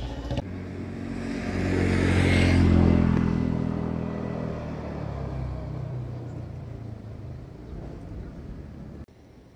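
A motor vehicle passing on the road: its engine note swells to a peak about two to three seconds in, then fades away.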